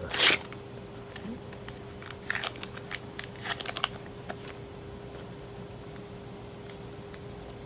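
Trading-card booster pack wrapper being torn open and crinkled, in several short crackly bursts, with a brief loud rush at the very start, over a faint steady hum.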